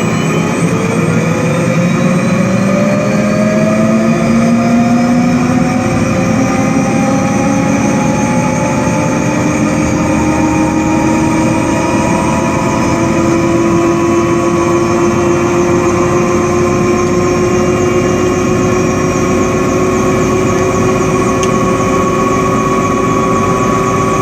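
Bell 206B3 JetRanger's Allison 250 turboshaft engine running up during start, its whine rising steadily in pitch and levelling off near the end as the engine and rotor come up to speed.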